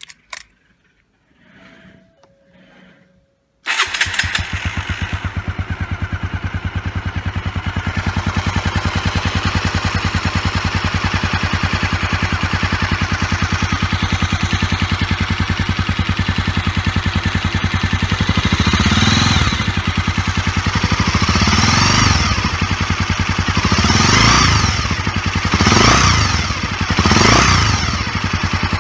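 Honda GB250 single-cylinder motorcycle engine starting about four seconds in after a few faint clicks, then idling steadily. Near the end the throttle is blipped five times, each a short rise and fall in revs.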